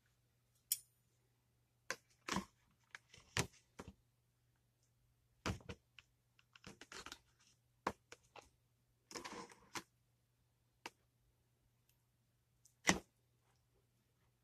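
Cutlery and hands working in a black plastic takeout tray: scattered clicks, taps and short scrapes as a fork and knife cut into ribs and a side cup is moved, with the sharpest tap near the end.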